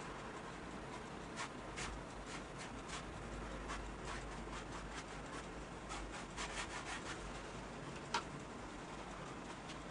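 Paintbrush scrubbing and dabbing acrylic paint onto a stretched canvas in quick, irregular scratchy strokes, with one sharper tap about eight seconds in.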